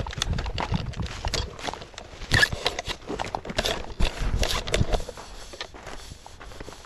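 Footsteps crunching irregularly through dry leaf litter on the forest floor, mixed with rustling and handling knocks.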